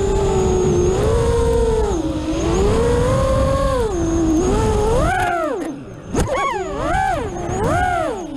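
Vortex 180 FPV quadcopter's motors and propellers whining, heard from its on-board camera, the pitch swooping up and down with the throttle. About two thirds through the throttle drops off briefly, then several quick bursts send the whine rising and falling. Wind rumble on the microphone sits underneath.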